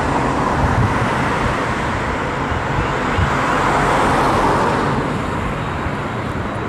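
McDonnell Douglas MD-82 on final approach, its two rear-mounted Pratt & Whitney JT8D turbofans making a steady jet roar that swells as it nears, loudest about four seconds in. Wind rumbles on the microphone underneath.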